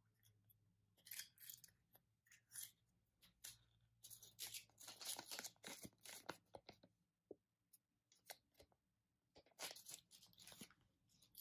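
Faint crinkling and tearing of the thin wrapper around a Kinder Joy capsule toy as it is opened by hand, in short bursts with a longer stretch of rustling in the middle.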